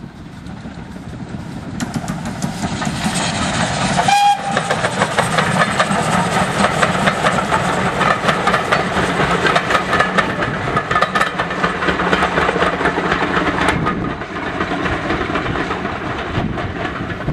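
A steam locomotive hauling a train of coaches passes close by, with one short whistle note about four seconds in. Wheels click rapidly over the rail joints as the coaches go past, easing off after about fourteen seconds.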